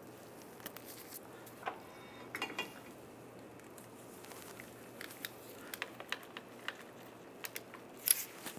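Scattered light metallic clicks and taps of a hand tool on a long extension working the last inner CV joint flange bolt into the transmission flange, with a sharper click near the end.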